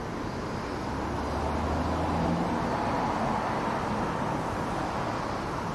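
City street traffic: a steady rush of passing cars, with a low engine hum from a vehicle going by between about one and two and a half seconds in.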